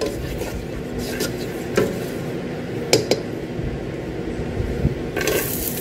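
A few light clinks of utensils against a cooking pan over a steady low hiss, then loud sizzling starts near the end as food goes into the hot pan.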